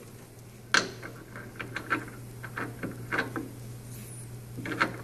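Parts of a Zummo Z14 citrus juicer being handled and fitted back together by hand: a sharp knock about a second in, a run of small clicks, and a cluster of clicks near the end, over a low steady hum.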